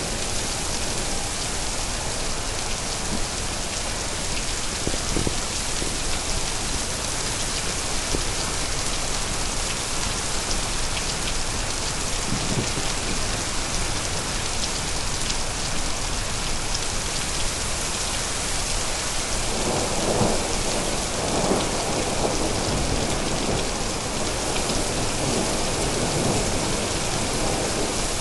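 Steady heavy rain hissing throughout, with rolling thunder rumbling in twice about two-thirds of the way through.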